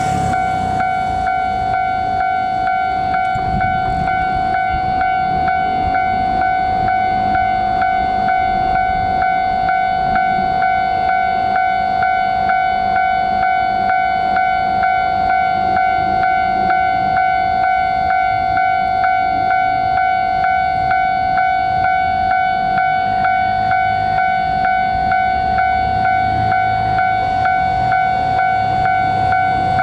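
Japanese railway level-crossing warning bell ringing, one high tone repeated over and over at a steady pace, with a low rumble underneath.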